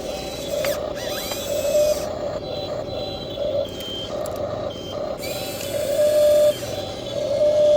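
Electric motors of a radio-controlled model excavator whining steadily, with a low buzz beneath. The whine swells louder twice, about six seconds in and again near the end.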